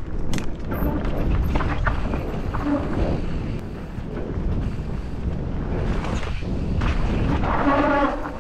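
Wind noise on the camera microphone and the rumble and rattle of a 2020 Kona Process X mountain bike rolling downhill over a rough trail, with a few sharp clicks at the start. Near the end a brief pitched tone sounds for under a second.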